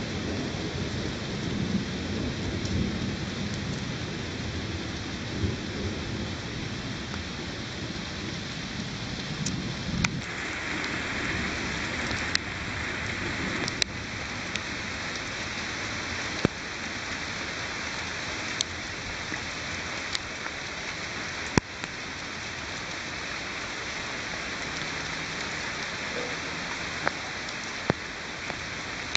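Steady rain in a thunderstorm, with a low rumble of thunder through roughly the first third. About ten seconds in the rain grows hissier and heavier. Sharp ticks of drops are scattered throughout.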